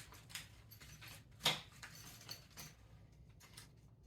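Small parts being handled: a few light clicks and rustles, with one louder click about a second and a half in.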